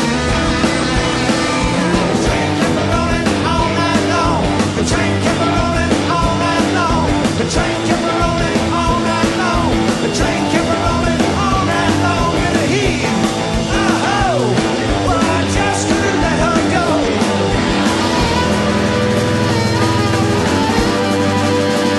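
Live rock band playing a fast, loud rock-and-roll number, with pitch-bending lead lines sliding up and down around the middle.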